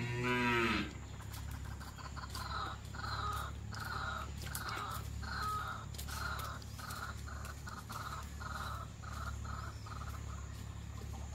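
A crow cawing over and over, short caws at a steady pace of about two a second, starting a couple of seconds in and stopping near the end, over a steady low hum.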